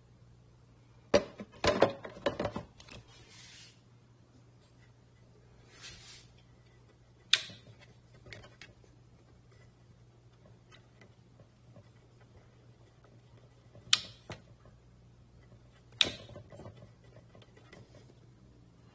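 A few sharp clicks and knocks, a quick cluster about a second in and single ones later, over a faint steady low hum.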